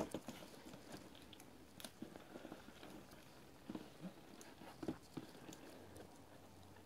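Faint, scattered taps and clicks of a cardboard box being handled.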